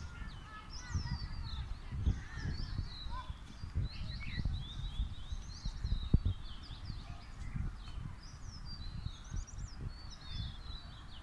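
Several birds chirping and singing from the trees, a busy run of short calls that glide up and down in pitch, over a low, uneven rumbling noise.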